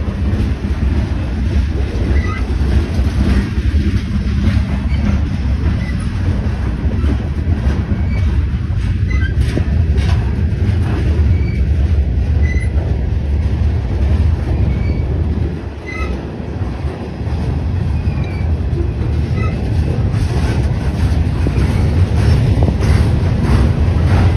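Freight train cars (tank cars, coil-steel cars and gondolas) rolling past close by: a steady low rumble and clatter of steel wheels on the rails, with brief high squeals dotted throughout.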